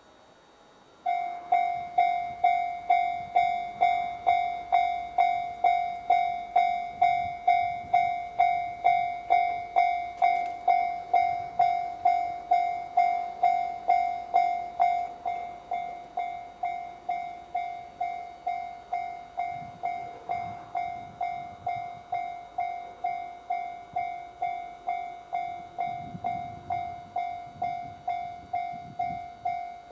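Japanese level-crossing electronic alarm bell in the JR standard tone, starting about a second in and ringing about two strikes a second. Its volume drops to a lower level about halfway through. An E531 series electric train can be heard rumbling past beneath the bell in the later part.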